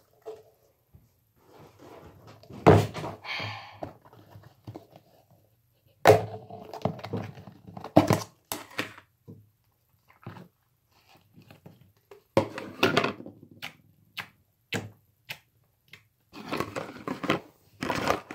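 Irregular thumps and knocks with quiet gaps between them, a few louder ones standing out.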